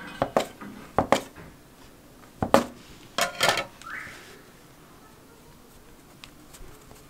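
Metal bench scraper chopping through soft dough and knocking on a wooden board: a handful of sharp taps, some in quick pairs, over the first three and a half seconds, then a brief soft rustle of dough being handled.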